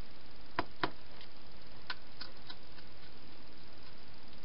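Wild hedgehog eating from a bowl inside a plastic feeding box: two sharp clicks of crunching or bowl contact about half a second in, then a few fainter clicks, over a steady hiss.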